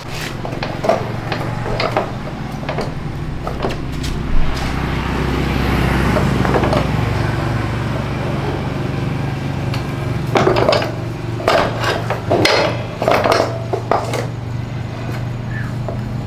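Dishes and kitchen utensils clattering and knocking during food preparation, over a steady low hum that comes on at the start.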